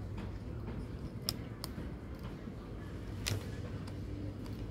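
A few light clicks and handling noises, about three sharp ticks, over a steady low hum while wires are being hooked up to a washing-machine control board for a power test.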